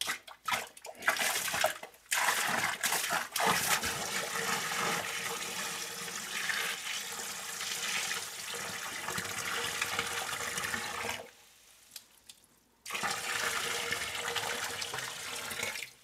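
Water poured from a plastic bucket into a sump pit, splashing and rushing onto the standing water at the bottom as the pit is filled to test the pump. The pour starts in a few short spurts, runs steadily, stops for about a second and a half near the three-quarter mark, then resumes.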